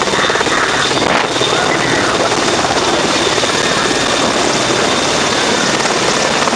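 AgustaWestland AW101 Merlin helicopter running close by: loud, steady rotor and turbine noise with a thin high whine held throughout.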